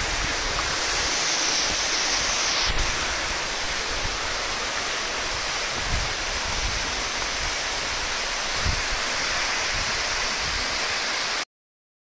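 Waterfall pouring down a rock face and splashing into its plunge pool: a steady rush of falling water. It cuts off suddenly near the end.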